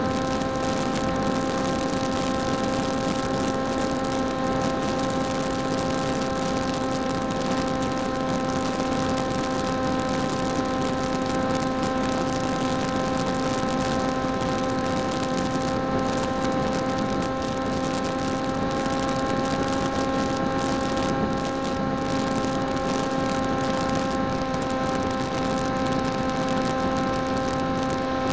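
Electric motor and propeller of a folding PopWing flying wing running at a steady throttle, heard from the onboard camera as a constant, even-pitched whining hum over a hiss of wind rush.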